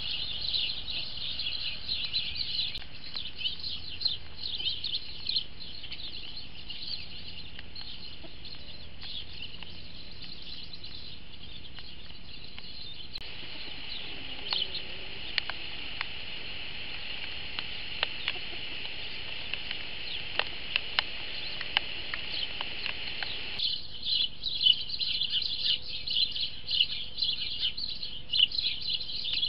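Small wild birds chirping in a dense, continuous chatter of short high chirps, heard through a trail camera's microphone. The background changes abruptly twice where recordings join.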